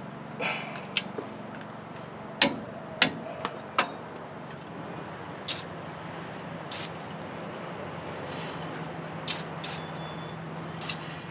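Scattered sharp metallic clinks and knocks of hand tools and hardware against a truck's disc brake assembly, about ten separate strikes, with a couple of short hisses from an aerosol spray can near the end. A steady low hum runs underneath.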